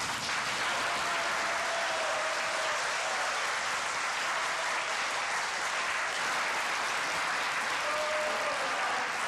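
A church congregation applauding, a dense, steady clapping from many hands.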